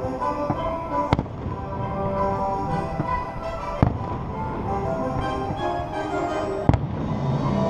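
Fireworks shells bursting, heard as three sharp bangs about three seconds apart, over music playing steadily throughout.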